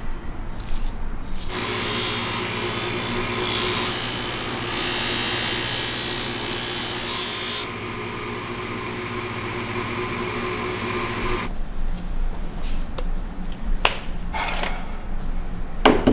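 A bench-mounted abrasive wheel running steadily as a wooden tube is ground against it, a harsh hissing grind for about six seconds, after which the motor hum carries on alone until it stops abruptly about eleven seconds in. A few light clicks and knocks of hand work follow near the end.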